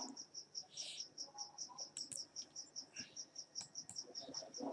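Faint, high chirping of an insect, an even pulse repeating about five times a second, with a few faint sharp clicks later on.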